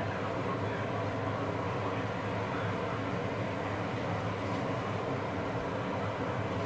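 Steady mechanical hum: a rushing noise over a low drone, unchanging in level.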